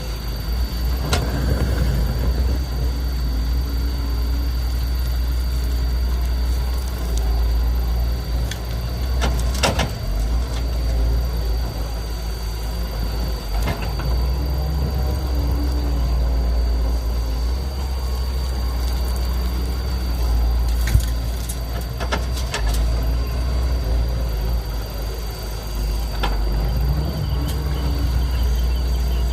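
Heavy diesel engine of an excavator loading trucks with soil, running steadily with a deep low rumble. A few sharp knocks and clanks come through at irregular intervals.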